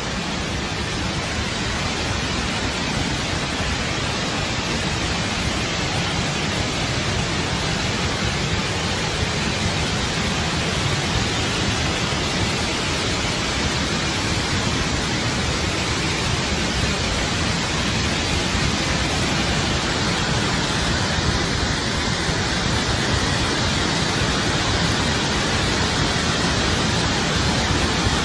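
Floodwater rushing out of an open dam spillway: a steady, dense roar of water that grows slightly louder toward the end.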